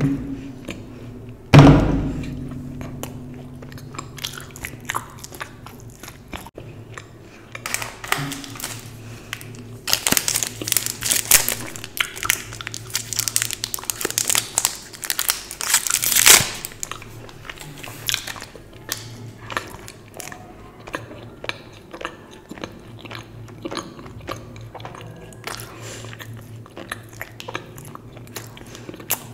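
Chocolate being bitten and chewed close to the microphone, with a loud thump about two seconds in. A foil wrapper crinkles steadily from about ten to sixteen seconds as a small wrapped chocolate is unwrapped, followed by softer mouth sounds as it is eaten.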